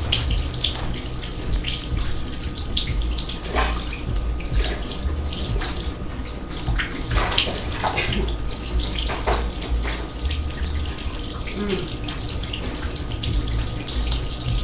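Water running steadily from a tap into a sink, with frequent small splashes.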